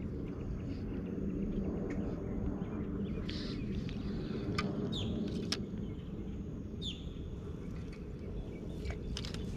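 Outdoor ambience: a steady low rumble, with a few short, downward-sweeping bird chirps about halfway through and near the end, and a couple of sharp clicks.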